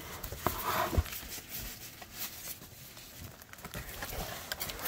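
Cardboard box being handled and unpacked: scattered scrapes, rustles and light knocks, with a sharper knock about a second in.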